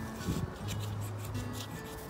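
Cloth rag rubbing over the wooden body of an old bench plane in several short wiping strokes, over soft background music.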